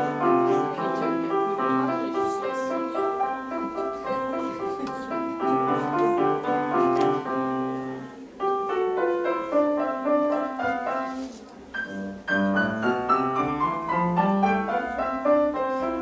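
Grand piano played solo in a fast passage of quick, dense notes, with two short breaks, one about halfway and one about three quarters in, after which sweeping runs of notes follow.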